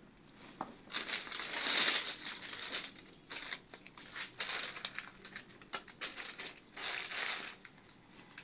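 Plastic sheeting and a white plastic sack crinkling and rustling in irregular bursts as a gloved hand lifts bones and debris out of a decayed coffin, loudest about one to two and a half seconds in.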